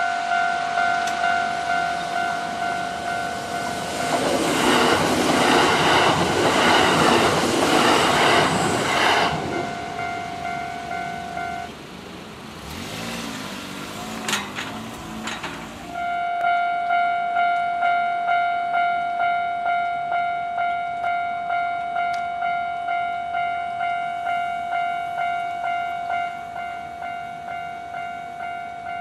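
Japanese level-crossing alarm bell ringing in a steady pulsing ding-ding as a Kintetsu electric train passes over the crossing about 4 to 9 seconds in. The bell stops about 12 seconds in, leaving a lower rumble with a few clicks, and starts ringing again about 16 seconds in as the crossing closes for the next train.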